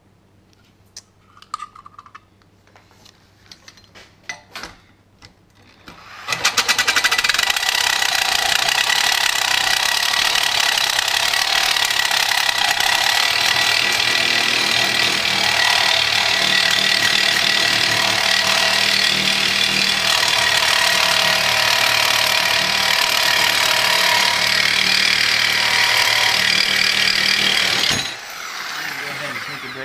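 A few light taps and clicks. Then, about six seconds in, a reciprocating saw with a carbide-toothed blade starts cutting through hardened leaf spring steel: a loud, steady grinding cut that runs for about twenty seconds and stops abruptly about two seconds before the end.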